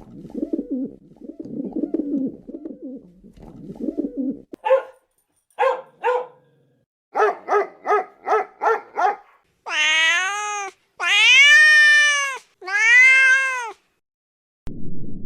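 A cat meowing. Low rough sounds come first, then three short calls, then a quick run of about six short calls. Three long, drawn-out meows that rise and fall in pitch are the loudest part.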